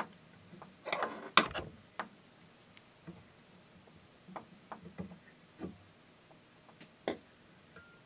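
Fly-tying scissors handled and snipping the waste end of the tying thread at the hook, heard as a string of small clicks and ticks with a sharper knock about a second and a half in.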